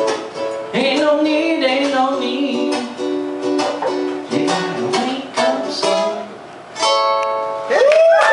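Ukulele strummed and a man singing, ending on a final chord that rings out about seven seconds in. A voice whoops right at the end.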